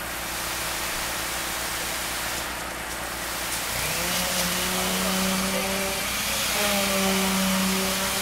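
Concrete pour machinery running steadily with a low pulsing rumble from the concrete pump. About halfway in, a motor starts up with a quickly rising hum that settles into a steady drone, dipping briefly before running on.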